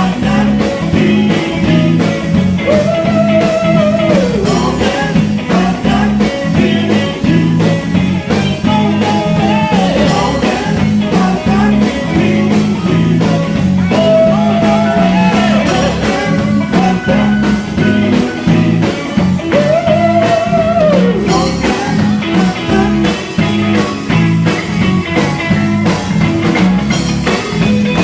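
A live gospel band playing: electric guitar lines that bend and glide in pitch over a steady bass and drum beat.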